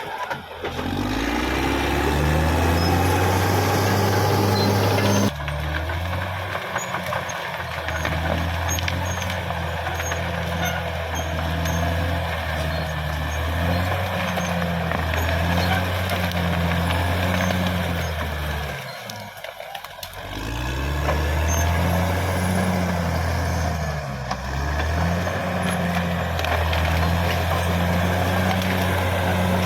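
Caterpillar D6R XL bulldozer's diesel engine running hard. Its note drops and climbs back up as it revs again, once just after the start and again near two-thirds through.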